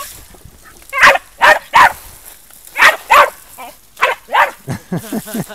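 Jack Russell terrier barking in play, about seven loud, sharp barks in quick groups of two or three.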